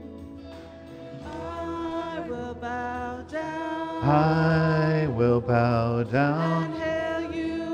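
Worship song sung with musical accompaniment; the voice holds a long note with vibrato on the word "praise" from about four seconds in.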